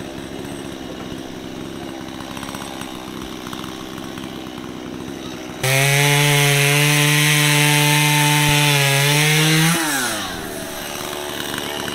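Gas chainsaw running at a low idle, then suddenly opened to full throttle about halfway through and held steady for about four seconds as it cuts into a tree, then released near the end, its pitch falling back toward idle.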